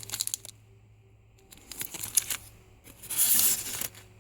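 Plastic packaging of rubber stamp sets crinkling and rustling as it is handled, in short crackly bursts, with a longer, louder rustle about three seconds in.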